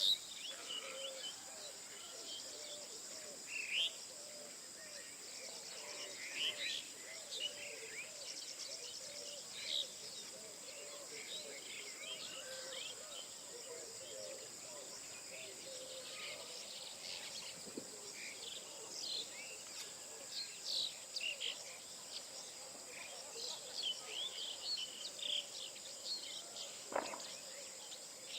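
Many birds chirping and singing in the morning, short scattered calls over a steady high-pitched insect drone, with a lower wavering call repeating through the first half.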